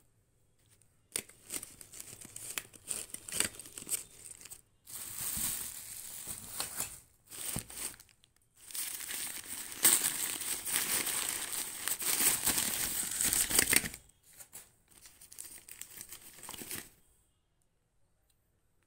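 Crumpled newspaper packing rustling and crinkling as hands dig through it, in irregular bursts with short pauses, stopping about two seconds before the end.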